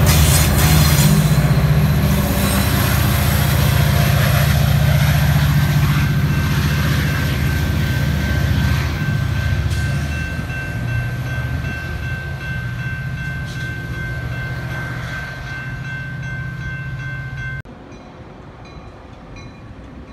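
Metra EMD F40PH diesel locomotive passing close at the rear of its commuter train: a loud low diesel rumble with railcar noise that fades steadily as the train pulls away. From about eight seconds in a steady high-pitched tone rings over it. A few seconds before the end the sound drops abruptly to a much quieter, distant train.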